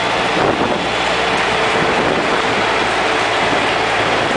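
Open-air tram running along a road: steady engine and tyre noise with a low constant hum.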